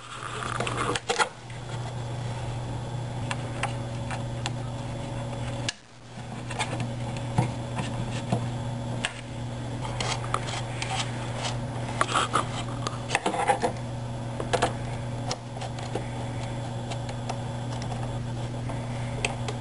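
Scattered light clicks and taps of a screwdriver and fingers working the screws and wooden axle caps on a laser-cut plywood 3D-printer frame, over a steady low hum.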